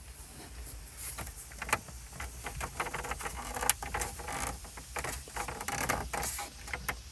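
Hands working the plastic dash trim and the CD head unit's mounting clip: an irregular run of small clicks, taps and rattles.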